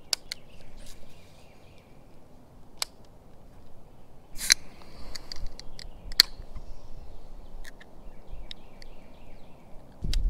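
Scattered sharp clicks and knocks, the loudest about four and a half seconds in, over faint bird calls. A low rumble starts near the end.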